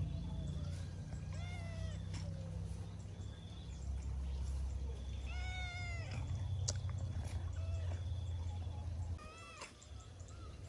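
Cat meowing three times, each call rising and then falling in pitch, the middle one the loudest. A steady low rumble runs underneath and drops away shortly before the last meow.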